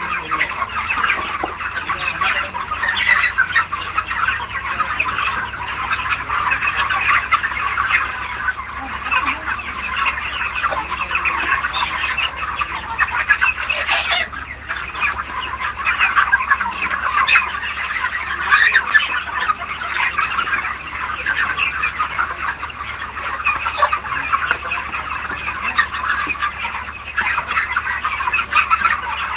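A large flock of chickens clucking and calling over one another without a break, over a steady low hum. There is one sharp click about halfway through.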